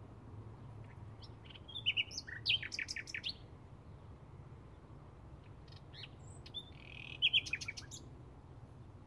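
Bluethroat singing: two phrases of quick, varied high notes, one about two seconds in and another about seven seconds in, the second including a short buzzy note. A low steady rumble runs underneath.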